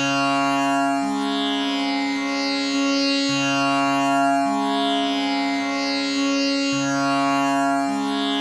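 Tanpura drone tuned to C sharp, its strings plucked one after another in a slow repeating cycle so that the lower notes change every second or so over a steady held tone, with a shimmering cloud of overtones.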